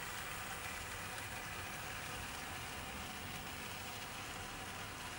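00 gauge model train running past: a model LMS Fairburn 2-6-4 tank engine pulling empty open wagons, its wheels rolling on the track in a steady, even noise.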